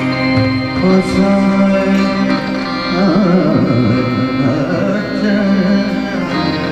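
Live ghazal: a male classical vocalist sings an ornamented line over held harmonium notes and tabla, his voice breaking into quick wavering runs about halfway through.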